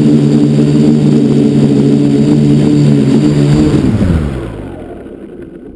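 FPV quadcopter's electric motors and propellers whirring steadily at close range, then winding down in pitch and fading about three and a half seconds in as the quad lands and the motors spin down.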